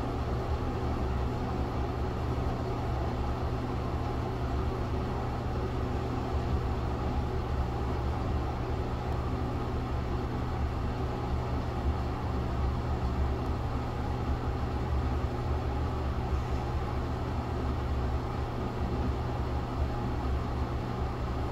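Steady low hum of a ventilation fan, unchanging throughout.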